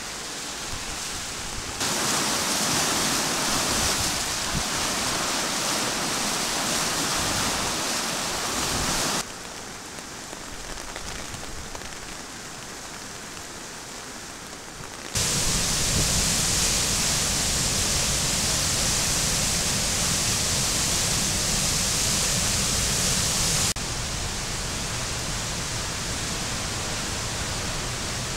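A river in flood, fast brown water rushing over rapids and a weir, heard as a steady rushing noise. Its level and depth jump abruptly four times as the shots change, deepest and loudest in the middle stretch.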